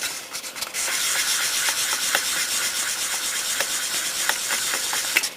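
Fine-grit sandpaper, about 1000 grit, rubbing over a plastic model car body: a steady, scratchy hiss that stops suddenly near the end. It is the fine sanding that smooths away a moulding bump before priming.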